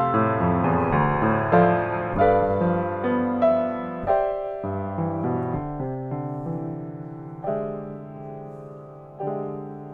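Grand piano playing a slow, gentle melody over chords. The playing grows softer and sparser after about four seconds, with lone chords left to ring out near the end.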